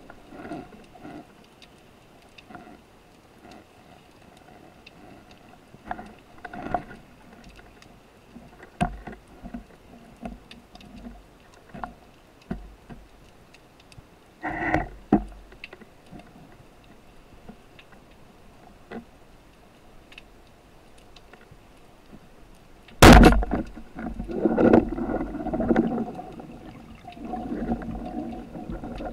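Underwater sound on a spearfishing dive: scattered clicks and knocks in the water, then a sudden loud thump about 23 seconds in, followed by several seconds of rushing, bubbling water noise.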